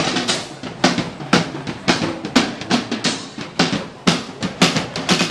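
Live drumming on drum kits: a steady beat of bass drum and snare hits.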